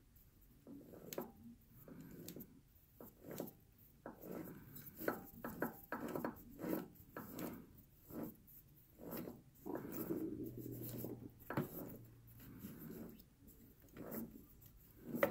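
Greased gears in a Grizzly G0768Z lathe's gearbox being turned slowly, giving irregular clicks and short scraping rubs as the teeth move past each other. One gear does not mesh properly.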